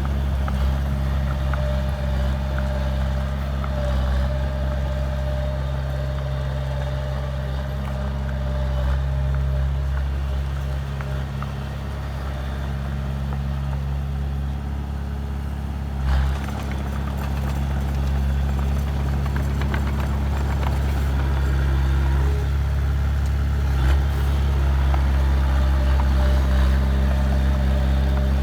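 Heavy diesel engine of earthmoving machinery running steadily under work. A faint steady whine runs for about the first eight seconds, and there are a couple of brief knocks, about 16 and 24 seconds in.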